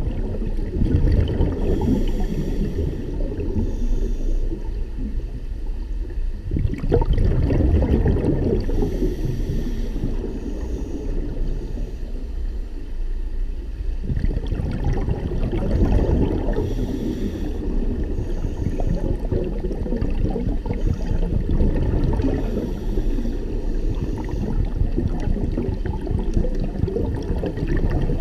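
Scuba breathing heard underwater: regulator exhaust bubbles gurgling and rumbling in slow breath cycles, about one every seven seconds.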